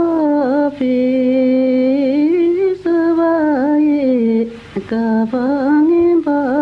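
A solo voice sings a slow, melodic mantra chant in long held notes, with short breaks between phrases and a faint steady low tone underneath.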